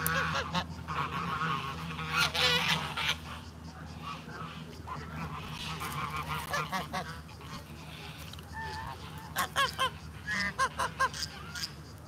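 Geese honking in several bursts of calls, ending in a quick run of short calls near the end.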